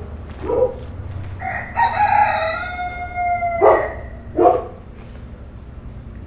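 Rooster crowing once, one long drawn-out call that drops in pitch at the end, with a short call just before it and two short sharp calls right after, over a steady low hum.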